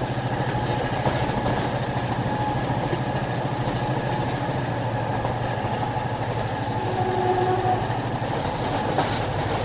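Steady running noise of a moving train heard from inside the carriage: a continuous low drone over an even rumble, with a faint tone coming and going about seven seconds in.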